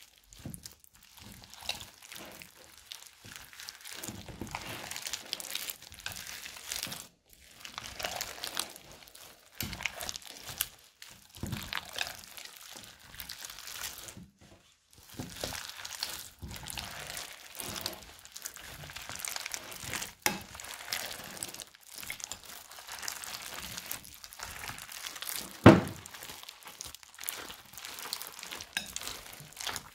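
Crunchy foam-bead slime squeezed and kneaded by hand: irregular bursts of crackling, crinkling and small pops as the beads are pressed and the slime is stretched. One loud thump near the end.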